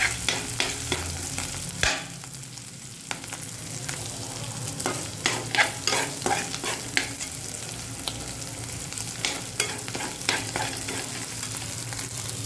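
Ginger-garlic paste sizzling in hot oil in an aluminium pan, frying off its raw smell, while a steel spoon stirs it with repeated clicks and scrapes against the pan. The sizzle runs steadily; the spoon strikes come in clusters, with a quieter stretch about two seconds in.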